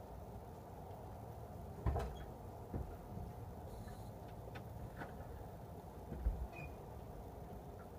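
1972 Ford F-100's 360 V8 engine running steadily, with a few irregular knocks, the loudest about two seconds in and again about six seconds in. It is an unidentified noise the owner is asking about.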